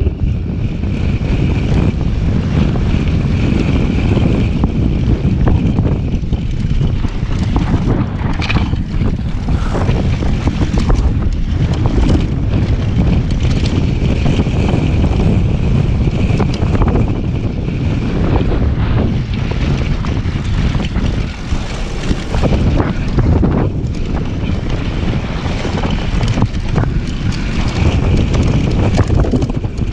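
Heavy wind buffeting on an action camera's microphone during a fast downhill mountain-bike descent on dry dirt and gravel. Tyres rumble over the loose surface, and the bike rattles and knocks repeatedly over bumps throughout.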